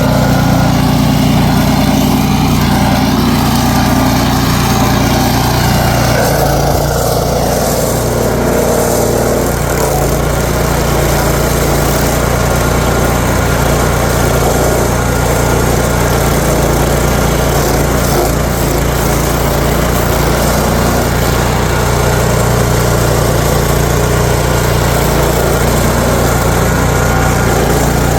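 The Gitendo stump grinder's 13.5 hp Briggs & Stratton engine running steadily and loudly as the machine works.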